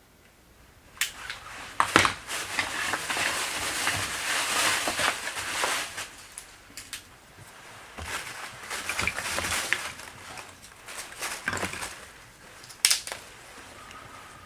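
Dry kindling sticks being handled and snapped for a campfire: long bouts of rustling and crunching, with a few sharp cracks, the loudest near the end.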